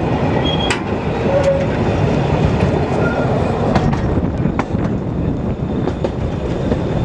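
Narrow-gauge passenger train running along the track, heard from on board: a steady rumble of the carriages' wheels on the rails with irregular clicks and knocks.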